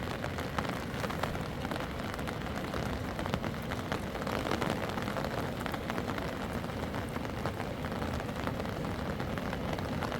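Steady rain falling, with many small drop impacts ticking on a surface.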